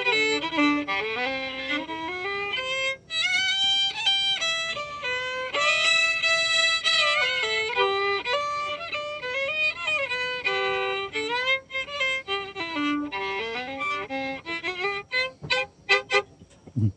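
Solo fiddle played with the bow, a lively run of changing notes, on an old violin-pattern fiddle (reckoned mid-1800s) freshly rebuilt with new strings, bridge, pegs, sound post and bass bar. There is a brief break about three seconds in, and the playing turns to a few short strokes before stopping near the end.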